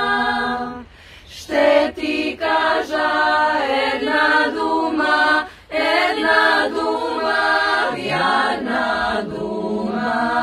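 Young women's a cappella vocal group singing a Bulgarian song in several voices, with a short pause about a second in and a held chord near the end.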